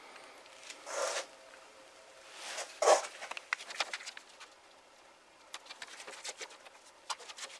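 Handling noises from a person working at a wooden shelving unit. A short rustle comes about a second in and another near three seconds, followed by a scatter of light clicks and taps as items on the shelves are moved.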